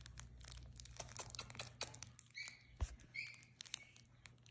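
Quiet rustling and handling noise as a hand strokes young Pomeranian puppies on a fleece blanket. A few short high squeaks come about halfway through and again a little later, and there is a dull bump near the middle.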